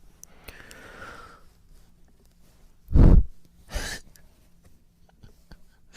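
A man breathing close to the microphone: a soft, drawn-out sighing exhale, then about three seconds in a sharp breath that hits the microphone with a loud low thump, followed by a shorter breath.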